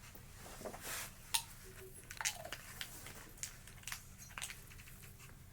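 Faint, irregular clicks and small crunches, a dozen or so scattered through, the sharpest about a second and a half in.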